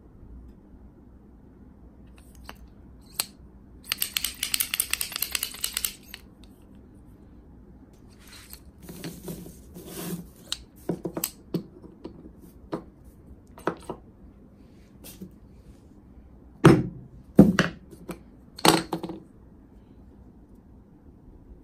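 Resin pen blanks and a plastic centre finder/punch being handled on a paper-covered bench: a scraping rustle for about two seconds, then scattered light clicks, and three sharp knocks a little over halfway through the last quarter.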